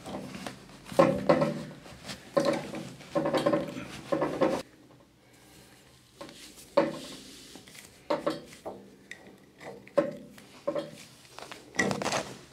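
A hose pipe being worked onto a central-heating drain-off valve, with rubbing and scraping for the first few seconds. After a short pause comes a scatter of small clicks and knocks as the Jubilee clip holding it is tightened.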